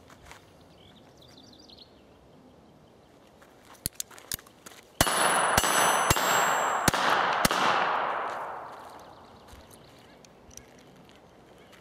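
North American Arms .22LR mini revolver fired five times in quick succession, about 0.6 s apart, after a few small handling clicks. High ringing and a long rushing wash follow the shots and fade over a few seconds.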